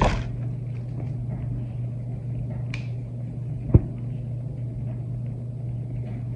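Steady low electrical-sounding hum, with a faint click a little before halfway and one short thump just past halfway.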